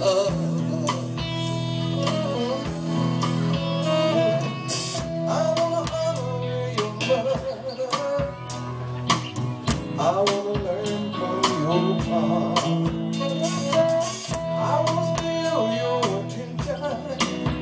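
Live band playing a song: a singer over electric guitar, keyboard and a steady drum beat.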